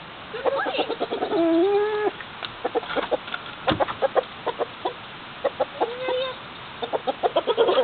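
Chickens clucking: quick runs of short clucks with two drawn-out calls, one starting about a second in and another around six seconds in.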